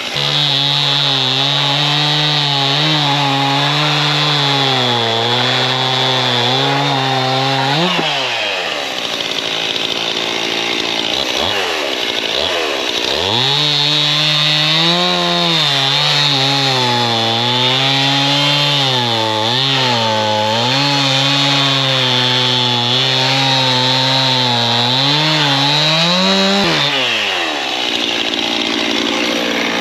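Two-stroke chainsaw cutting through a stack of sawmill slabs at full throttle, its pitch sagging and wavering under load. About eight seconds in it speeds up as it breaks through and drops back to idle, then cuts again for about thirteen seconds before speeding up and falling back to idle near the end.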